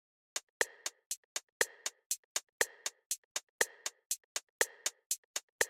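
Electronic drum-machine beat of sharp clicks, about four a second with a louder accent once a second, starting about a third of a second in: a quiz's thinking-time countdown.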